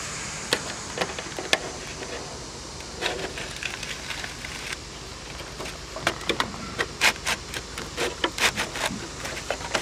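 Scattered sharp clicks and taps of a gutter guard piece being folded by hand and pressed into the end of a rain gutter. The taps come sparsely at first and in quick clusters in the second half.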